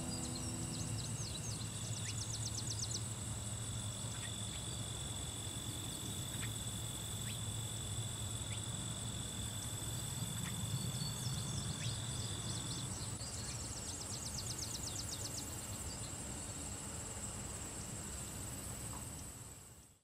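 Outdoor summer insect chorus: a steady high-pitched trill with two spells of rapid, pulsed chirping, a couple of seconds in and again a little past the middle, over a low hum. It fades out at the very end.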